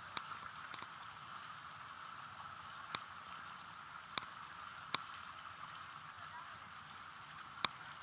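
Steady hiss of water washing along the hull of a slowly moving motor boat, with about half a dozen sharp clicks scattered through it.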